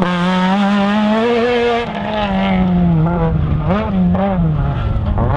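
Rally car engine running hard at high revs, its pitch holding level, then falling about two seconds in as the car comes off the throttle. It then swoops quickly up and down a few times.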